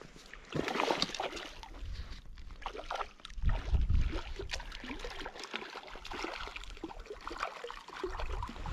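Water splashing and sloshing in irregular bursts on a reservoir, with low rumbling surges about three and a half seconds in and again near the end.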